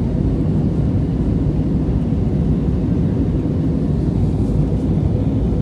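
Steady low cabin noise of a jet airliner in flight: engine and rushing-air noise heard from a window seat over the wing, even throughout.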